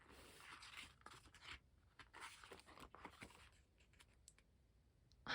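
Faint paper rustling and light scraping as photobook pages are handled and turned, in two short spells.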